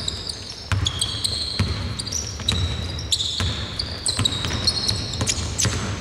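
Basketball bouncing on a hardwood court as it is dribbled, about one bounce a second. Many short, high-pitched sneaker squeaks on the floor run alongside the bounces.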